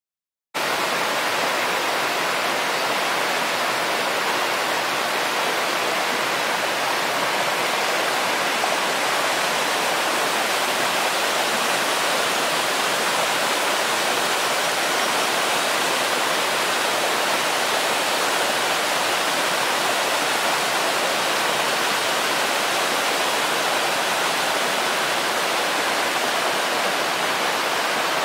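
Waterfall: a steady rush of falling water, cutting in suddenly about half a second in.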